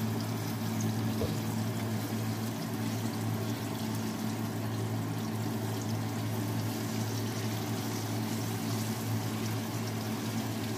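Turon (banana spring rolls) deep-frying in a pot of hot oil: a steady sizzle and bubbling, with a steady low hum underneath.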